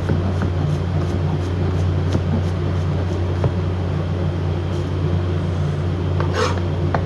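Steady low hum of kitchen extraction running, with light, irregular knife taps on a chopping board as shallots are finely diced and one louder brief clatter about six seconds in.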